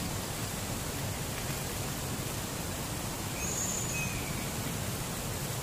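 Steady rush of river water pouring over a low concrete weir, with a short high chirp about three and a half seconds in.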